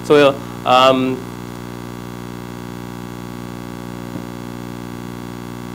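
Steady electrical mains hum with many even overtones, following a man's voice speaking briefly in the first second.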